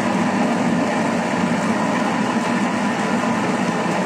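Thermomix TM6 food processor blending chunks of pumpkin, apple and mango: a steady, loud motor-and-blade noise that holds even throughout.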